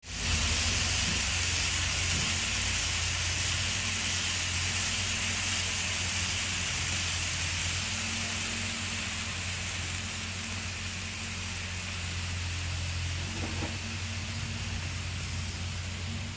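Kato N scale model train running on DC power along its Unitrack line: a steady low hum under a constant hiss.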